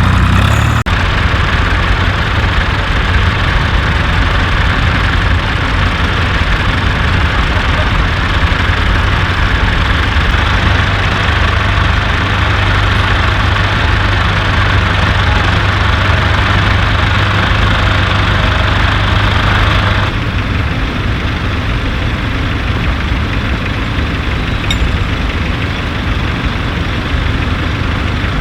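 An engine idling steadily, its low hum constant, with the higher part of the sound dropping away about twenty seconds in.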